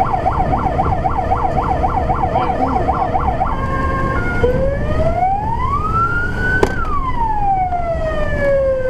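Fire engine siren on a fast warble, about three rises and falls a second. About three and a half seconds in it changes to one slow wail that rises for about two seconds and then falls away to the end. A sharp click sounds at the peak, and the truck's engine rumbles underneath.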